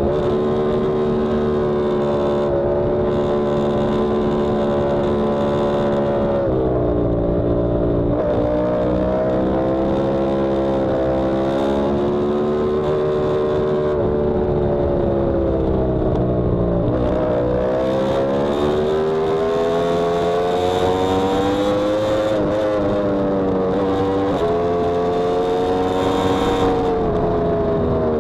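Yamaha R1M crossplane inline-four engine running hard at speed, its pitch rising and falling with throttle and gear changes, with sharp shifts about six and seventeen seconds in, over wind rumble.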